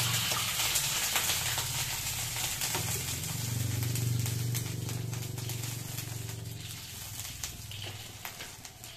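Water poured into a hot pan of fried garlic and pork skin, hissing and crackling loudly at first and dying down over several seconds. A low steady hum runs underneath.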